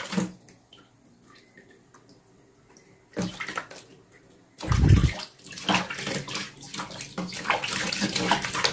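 Water splashing and sloshing in a plastic basin as a kitten is washed by hand. It is fairly quiet for the first three seconds, then the splashing becomes continuous, with a heavy low thump about five seconds in.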